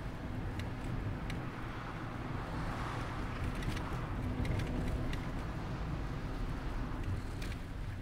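Mazda ND Roadster on the move: a steady engine hum with road and wind noise. A few faint light clicks come through here and there.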